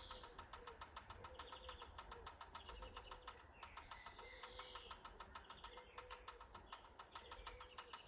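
Faint garden birdsong: small birds chirping and twittering now and then, over a low call repeated about once a second and a low steady rumble.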